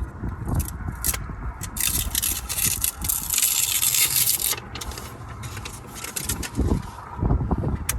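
Hands handling an adhesive foam spacer: scraping and rubbing, a few light clicks, and a long hissing rustle in the middle as the tape backing is peeled off.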